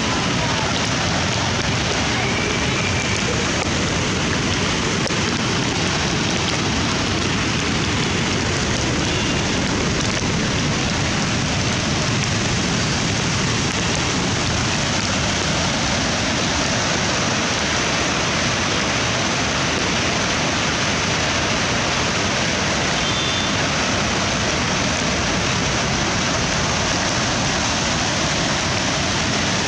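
Steady, unbroken rushing of a white-water torrent released through a dam's gates, mixed with falling rain.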